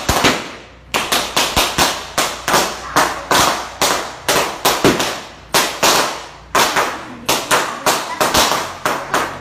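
Balloons bursting one after another as a burning toilet-paper fuse climbs into the bunch: sharp, irregular bangs, several a second, like a string of firecrackers, with a few short pauses.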